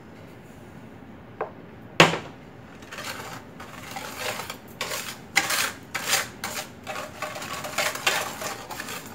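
Wire whisk beating sugar into eggs in a plastic mixing bowl: an irregular scraping clatter of strokes that starts about three seconds in, after a single sharp knock at about two seconds.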